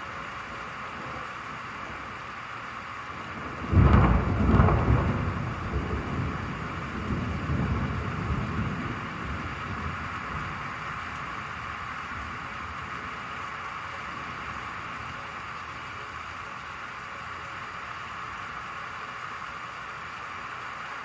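Steady rain falling, with a sudden clap of thunder about four seconds in that rumbles on for several seconds before fading back into the rain.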